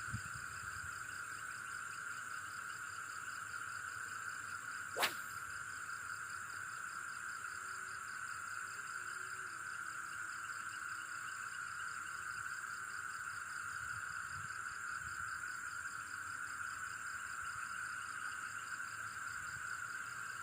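Steady chorus of crickets and other night insects, with a pulsing trill among the high, even buzzing. About five seconds in, one quick swish sweeps from high to low: a casting rod whipping through the air.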